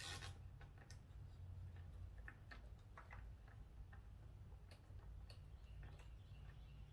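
Faint, irregular clicks and taps from hand tools working on a motorcycle, over a low steady hum.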